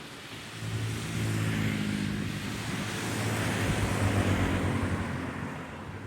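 Aircraft passing by: engine hum and rushing noise swell up, peak about two-thirds of the way through, then fade.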